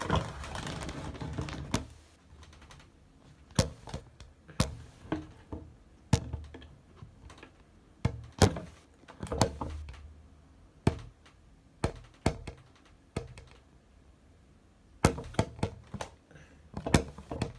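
Irregular thunks and taps, about a dozen scattered through the stretch, from a phone being handled and bumped close up in a small room, with a brief noisy burst at the very start.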